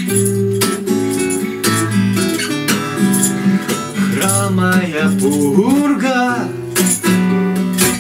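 Two acoustic guitars strummed together, with a man's singing voice over them in the middle of the passage.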